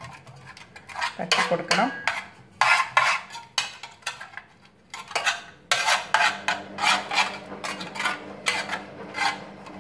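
A metal spoon scraping and clinking against the bottom of a metal pot as it spreads melted ghee around. The strokes come in quick repeated scrapes, about two or three a second in the second half.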